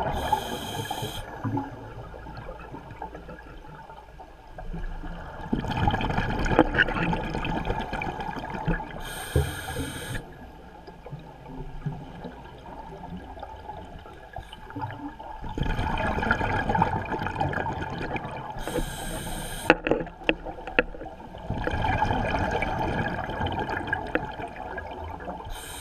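Scuba breathing heard underwater through the camera's housing. Long bubbling, rushing exhalations from the regulator come about every seven to ten seconds, each closing with a short high hiss of the regulator. A few sharp clicks come about twenty seconds in.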